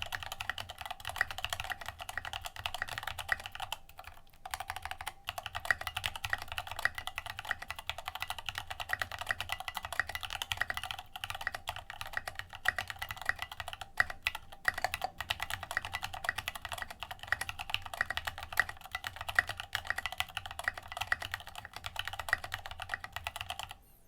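Rapid, continuous typing on a mechanical keyboard with Gateron Yellow linear switches lubed with Krytox 205g0 and tall SA-profile keycaps. A few brief pauses break the key clatter, and the typing stops near the end.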